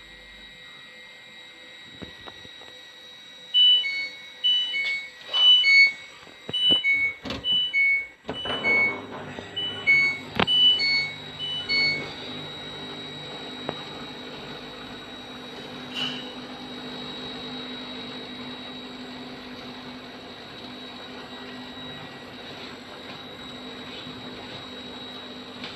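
A front-loading washing machine's control panel beeping: a quick series of short electronic beeps on several pitches, with clicks of buttons or the door among them. The machine then starts running with a steady low motor hum.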